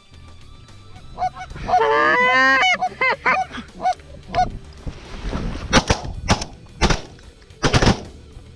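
Canada geese honking loudly and rapidly in a close, overlapping run for a few seconds, then a quick string of several shotgun shots in the second half.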